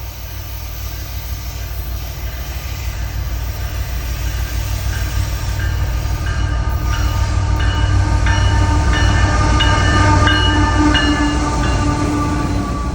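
Train approaching and passing, its low rumble growing louder to a peak about ten seconds in. From about midway the locomotive's bell rings about twice a second as part of a salute, fading near the end.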